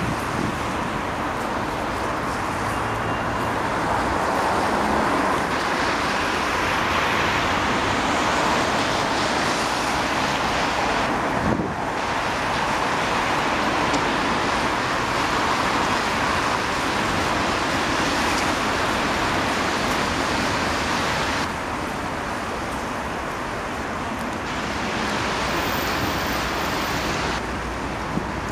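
Steady noise of dense city road traffic, with many cars moving along a wide multi-lane street. The level shifts abruptly a few times, briefly dipping just before halfway through.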